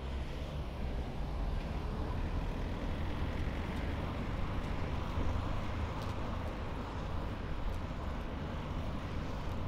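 City street traffic heard from a moving bicycle: cars driving close alongside over a steady low rumble.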